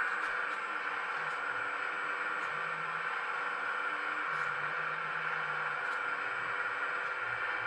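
Hydraulic pump of a 1/15-scale RC Hitachi ZX135 excavator running with a steady whir, with low tones that shift as the stick and bucket move, and a few faint ticks.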